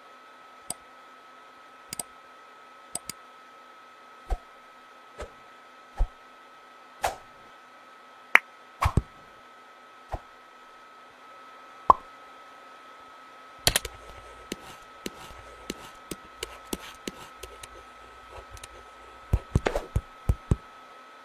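Cartoon sound effects: scattered sharp clicks and light knocks, roughly one a second at first, over a faint steady hum. Over the last several seconds they come thicker and faster, with a few louder knocks near the end.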